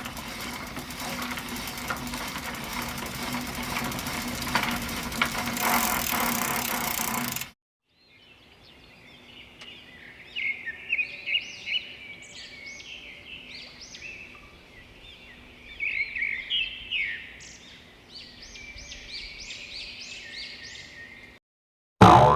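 A dense hissing, crackling noise with a low hum for about seven seconds, which cuts off abruptly. After a short gap comes birdsong: quick, high chirps in clusters for about thirteen seconds, stopping suddenly. A loud sound starts just before the end.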